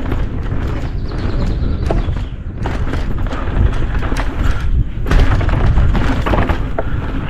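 Downhill mountain bike riding over rough trail: a steady low rumble with quick, irregular knocks and rattles as the bike hits the bumps.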